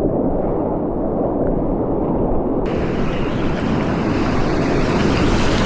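Whitewater rapids rushing loudly and steadily around a kayak as it runs big standing waves. About halfway through the sound suddenly turns brighter and hissier.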